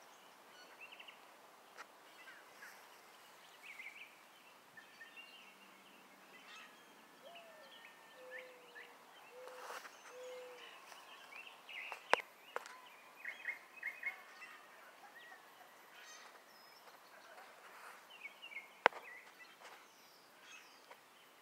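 Wild birds chirping and singing, many short calls overlapping, with a few lower whistled notes in the middle. Two sharp clicks stand out, one just past halfway and one near the end.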